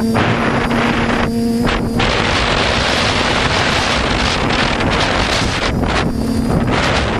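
Heavy wind rushing across a quadcopter's camera microphone in flight. The steady hum of the drone's motors and propellers fades under the wind about two seconds in and comes back faintly near the end.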